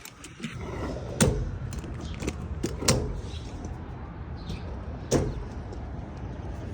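A few sharp knocks and clicks, the loudest about a second in, near three seconds and near five seconds, over a low steady rumble.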